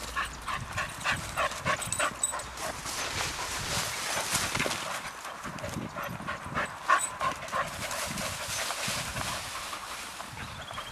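Dogs moving about in the grass, panting, with many short repeated sounds.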